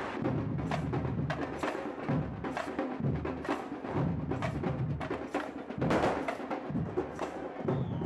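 Drum band playing a steady rhythm, with sharp drum strikes about twice a second over deeper drum beats.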